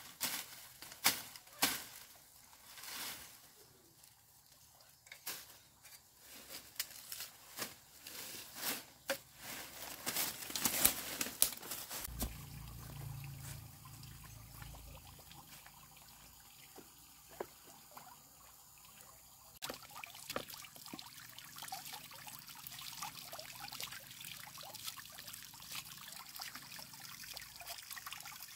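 A run of sharp clicks and knocks, then water trickling and pouring steadily through the second half.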